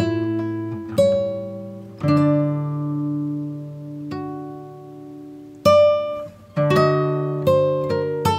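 Background music on a plucked string instrument: a slow melody of single notes, each struck sharply and left to ring and fade. The notes come more quickly near the end.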